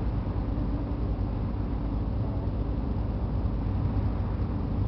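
Boat's engine running with a steady low drone, heard on board while crossing open water.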